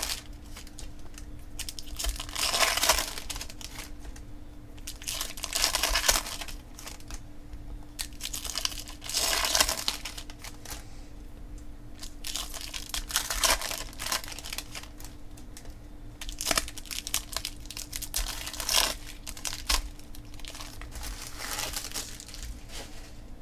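Foil wrappers of Bowman Draft baseball card packs being torn open and crinkled, in short crackly bursts every few seconds.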